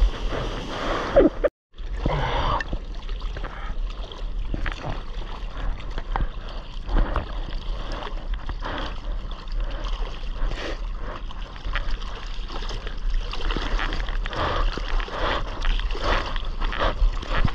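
Sea water splashing and sloshing right at a board-mounted GoPro at the water's surface, with many irregular splashes. The sound cuts out completely for a moment about a second and a half in.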